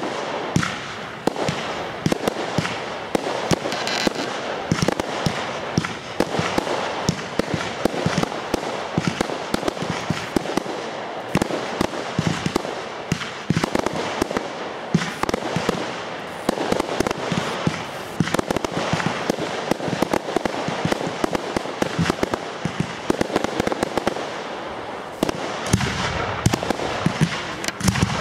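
Aerial fireworks going off in quick succession: a dense, continuous run of sharp bangs and pops from launches and bursts, overlapping with hardly a pause.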